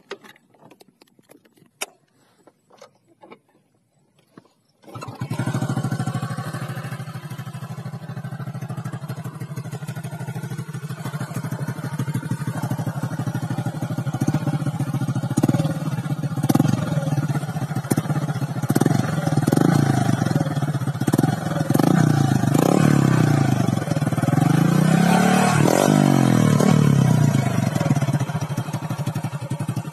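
Motorcycle with a chrome KOZI aftermarket exhaust, started after a few light clicks and knocks, with the engine catching about five seconds in. It idles at first, then is revved up and down repeatedly through the second half.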